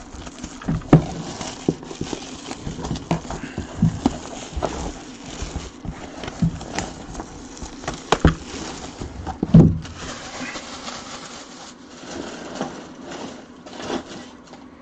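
Plastic wrapping crinkling and crackling as it is peeled off a sealed jersey package, with many short sharp clicks and knocks of handling.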